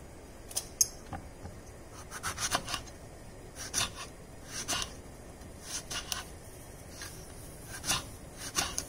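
Kitchen knife cutting eggplant on a wooden cutting board: a series of short, irregular cuts and taps of the blade on the board, about one a second and sometimes two or three close together.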